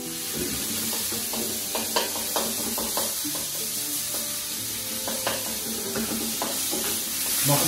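Minced meat sizzling in a hot steel wok, stirred and scraped with a wooden spatula. A few sharp knocks of the spatula against the pan stand out from the steady sizzle.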